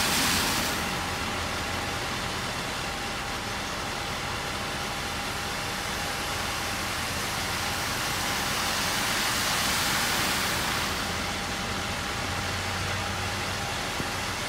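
Cars driving through floodwater, their tyres hissing and throwing up spray, over a steady hiss of rain. The spray swells near the start and again about eight to eleven seconds in, as vehicles pass.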